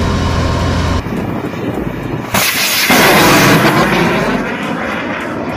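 Tor-M2 air-defence vehicle's engine running with a steady hum, then a surface-to-air missile launching with a sudden loud roar about two and a half seconds in that peaks and slowly fades as the missile climbs away.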